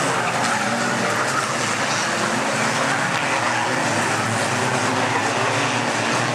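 Engines of several micro banger racing cars running and revving together as they race around the track.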